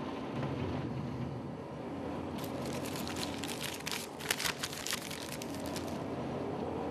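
Paper being handled, crinkling in a run of quick, sharp crackles from about two to six seconds in, over a steady hiss of wind.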